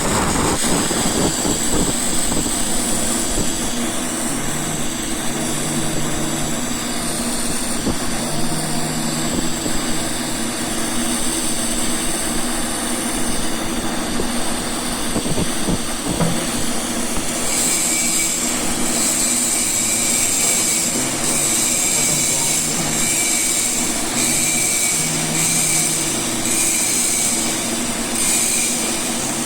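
TIG welding arc burning steadily at about 120 amps: a constant hiss and buzz with a high-pitched whine, which grows stronger a little past halfway.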